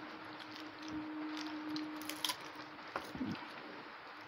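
Eating by hand: fingers working rice and fish on plates and chewing, with a few sharp clicks about two and three seconds in, over a faint steady hum.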